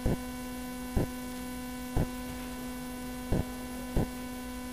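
Steady electrical mains hum picked up on the recording, with a short sharp click about once a second.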